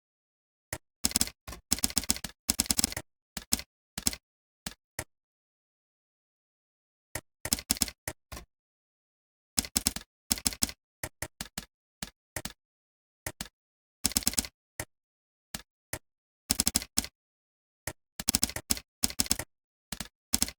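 Computer keyboard typing in quick bursts of keystrokes, with pauses of a second or two between bursts.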